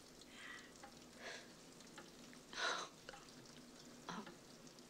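Quiet, unsteady breaths and sniffs of someone on the verge of tears: a few short ones, the loudest about two and a half seconds in, over a faint steady hiss.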